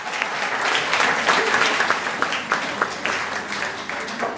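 Audience applauding, a dense spread of hand clapping that thins out toward the end.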